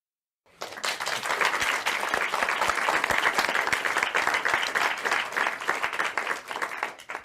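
Crowd applause, many hands clapping, starting about half a second in and cutting off sharply near the end.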